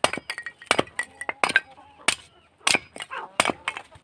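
Scrap wooden boards giving off a quick, irregular run of sharp cracks and knocks, about a dozen in four seconds, as they are split and handled for small kindling.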